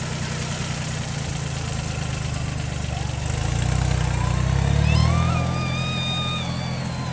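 Engine running steadily, swelling louder about halfway through and easing off again. A high tone with overtones joins in from a little past halfway and is held for about two seconds.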